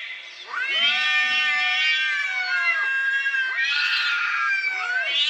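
Domestic cats caterwauling in a hostile standoff: long, drawn-out, wavering yowls, one lasting a couple of seconds, then another that rises sharply in pitch about three and a half seconds in.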